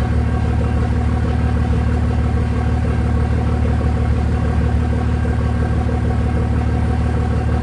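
Steady low rumble of a long freight train's cars rolling past the crossing, unchanging throughout.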